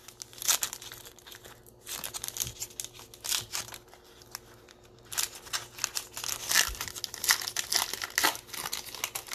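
Basketball trading-card pack's foil wrapper being torn open and crinkled by hand: irregular crackling and rustling in uneven spurts, busiest in the second half.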